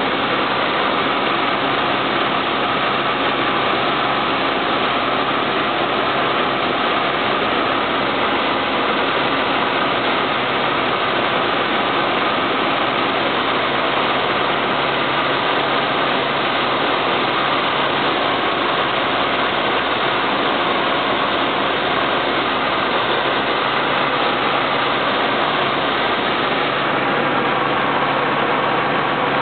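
Single-engine light aircraft's piston engine and propeller droning steadily in cruise, heard from inside the cockpit, with an even rush of noise over a low, constant hum.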